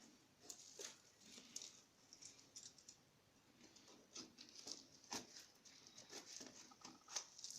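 Faint, scattered rustling and light clicks of a parcel's plastic packaging being handled and opened by hand.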